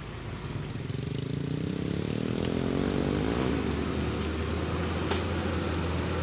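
A motor vehicle engine running, growing louder over the first two seconds and then steady, with one sharp click about five seconds in.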